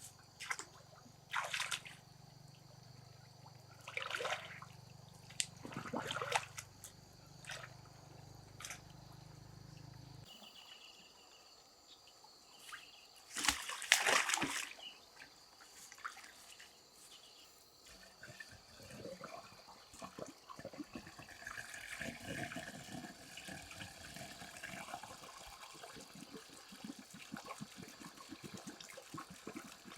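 Water splashing and trickling in short separate bursts, the loudest splash about halfway through, over a faint low hum that stops about a third of the way in.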